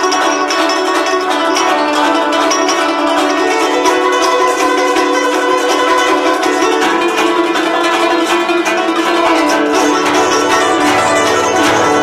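Guzheng (Chinese zither) played solo at speed: a dense stream of plucked string notes, with lower notes joining in over the last few seconds.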